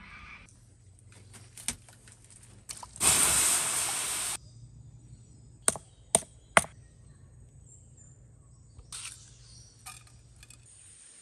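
A hand-held stone crushing dark granular material on a stone slab. There is a loud grating scrape of about a second and a half, then three sharp stone-on-stone knocks about half a second apart, and a few fainter clicks near the end.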